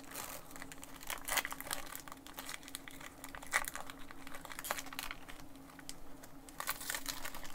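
Pokémon trading cards and their foil booster wrapper being handled: irregular crinkling and soft clicks as the cards are slid one over another, over a faint steady hum.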